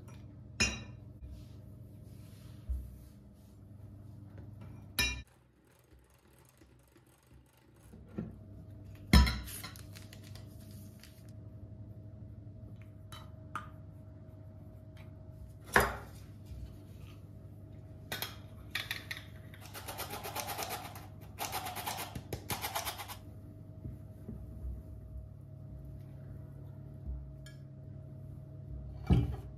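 Kitchen utensil sounds while mixing cake batter: scattered sharp clinks of a spoon and dishes against a glass bowl and a ceramic cup, and about two-thirds of the way through a few seconds of fast stirring and scraping in a bowl. A steady low hum sits underneath.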